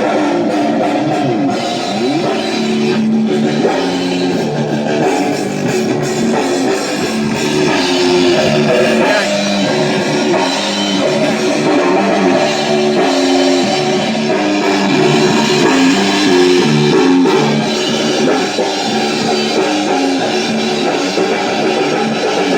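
Loud rock jam: distorted guitar riffing over a drum kit, with no vocals.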